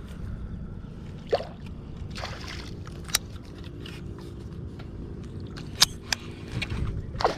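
Baitcasting reel being cranked to wind in a hooked fish, over water sloshing against the boat's side. A few sharp clicks come around the middle and near the end.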